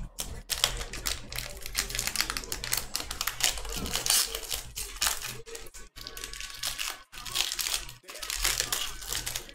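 Foil trading-card pack being torn open and its wrapper crinkled, amid a dense run of small clicks and crackles from the cards and wrapper being handled.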